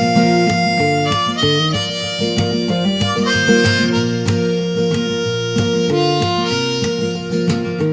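Harmonica solo over acoustic guitar in a folk song, held notes moving through a melody.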